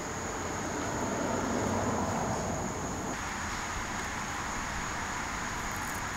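Steady outdoor background: a constant high-pitched insect drone over a low traffic rumble that swells about a second or two in and then eases.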